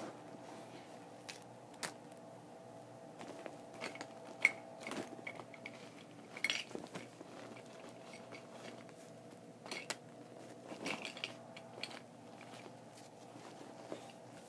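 Small hard plastic Littlest Pet Shop figures clicking and clattering as they are handled and taken out of a bag, in scattered irregular bursts over a steady low hum.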